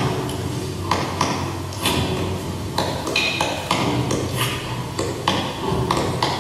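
Performance sound score of irregular sharp pings and taps, about two or three a second, over a steady low hum.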